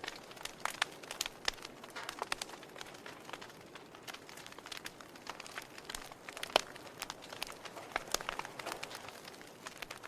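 Wood fire burning in a fireplace: irregular sharp crackles and pops over a soft steady hiss, with one louder pop about six and a half seconds in.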